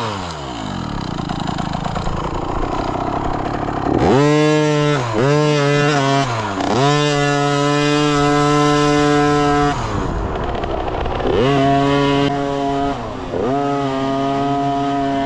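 Small dirt bike engine being ridden along a trail, revving up in a series of rising pulls and easing off, with steady stretches of held throttle in between, the longest in the middle.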